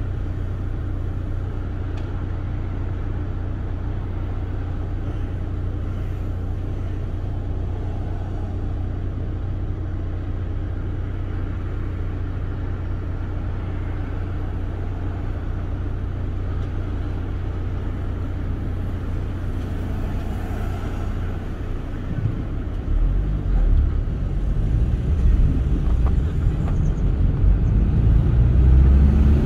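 Car on the move: a steady low hum of engine and road noise, turning into a louder, uneven low rumble over the last several seconds.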